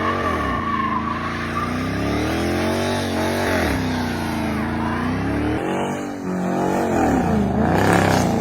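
Car engine revving, its pitch rising and falling several times with repeated throttle blips.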